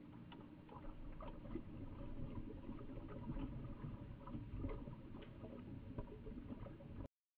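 Underwater ambience recorded on the dive: a low rumble with irregular crackling clicks scattered throughout. It cuts off suddenly near the end.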